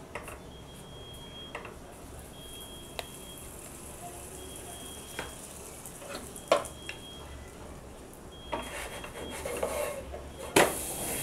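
Naan frying in butter in a nonstick pan: a faint steady sizzle while a metal spoon spreads butter over the top, ticking against the pan every second or two. Near the end comes scraping and a sharp knock as a wooden spatula goes under the naan and lifts it.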